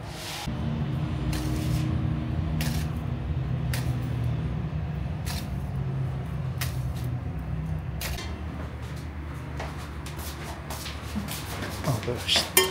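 A metal spoon clicking against a tin about once every second or so as salt is spooned into dizi pots, over a steady low hum. A few louder knocks and a short scrape come near the end.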